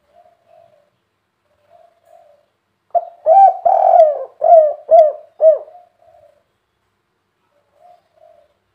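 Spotted dove (tekukur) cooing: soft, faint coos, then about three seconds in a loud phrase of rising-and-falling coos. The phrase has a longer middle note followed by three short ending notes, the 'kuk 3' song type, and faint coos return near the end.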